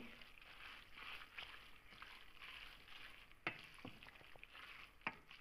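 Wooden spoon stirring a wet mixture of vermicelli, shrimp and sauce in a pot: faint squishing and scraping, with two clicks of the spoon against the pot, one about three and a half seconds in and one near the end.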